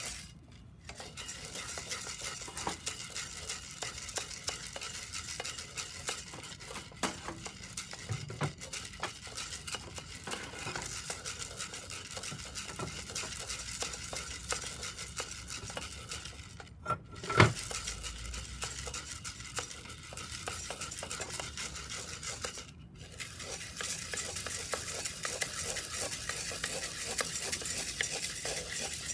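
Coffee beans roasting in a round-bottom cast iron pot, stirred with a wooden spatula: a steady hiss with many small rattles and clicks as the beans scrape and tumble against the iron. There is one louder knock a little past the middle.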